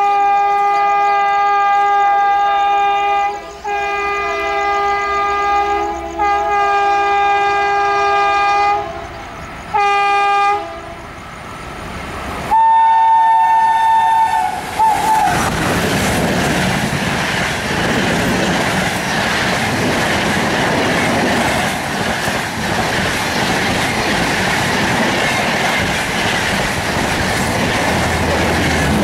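Indian Railways locomotive horn: three long blasts and a short one, then a brief higher single-note horn. A passenger train then runs past with steady wheel and rail noise.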